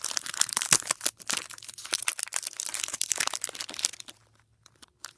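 Foil wrapper of a Pokémon TCG booster pack crinkling and crackling as it is handled and torn open, a dense run of sharp crackles that dies away about four seconds in.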